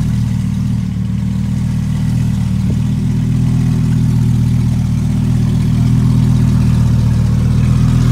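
Lamborghini Huracán's V10 engine idling steadily.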